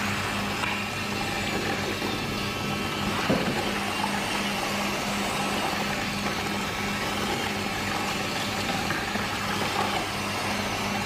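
A steady mechanical drone with a low hum that pulses evenly throughout.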